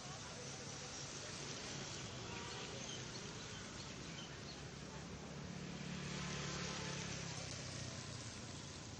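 Outdoor street noise: a motor vehicle's engine running steadily, its hum louder for a couple of seconds past the middle, over a steady hiss, with faint voices in the background.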